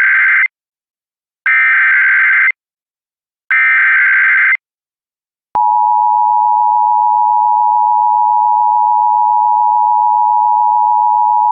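Emergency Alert System SAME header: the tail of one burst of raspy two-tone digital data, then two more one-second bursts about a second apart. About five and a half seconds in, the steady EAS attention tone starts with a click and holds. It signals that a spoken warning is about to follow.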